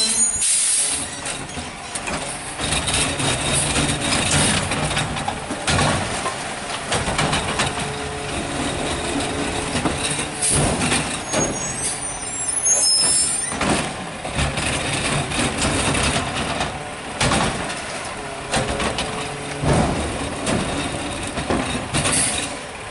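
Peterbilt 520 garbage truck with a McNeilus ZR body working at the curb: the engine runs under hydraulic load as carts are tipped and the packer cycles, with repeated clanks and knocks of metal and bins. A brief high squeal comes about twelve seconds in.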